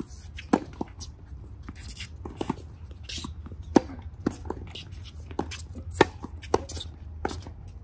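Tennis balls struck by racquets and bouncing on a hard court: a sharp pop every second or two, with fainter hits from neighbouring courts in between, over a steady low rumble.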